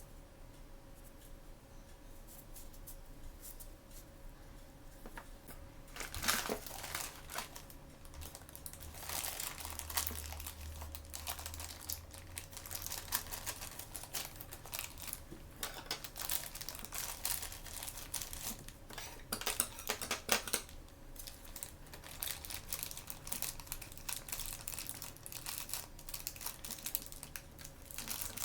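Blind-bag packaging being handled by hand, crinkling and tearing as it is opened. The crackling starts about six seconds in and goes on in irregular bursts.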